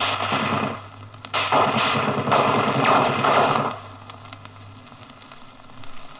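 Machine-gun fire in two bursts: a short burst of under a second, then a longer burst of about two and a half seconds with a couple of brief breaks. It is an old archive disc recording with little treble, and only faint hiss follows the bursts.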